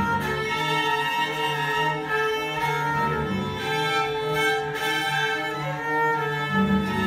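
String quartet of violins and cello playing live: the upper strings hold long bowed notes over a cello line of short, evenly repeated notes.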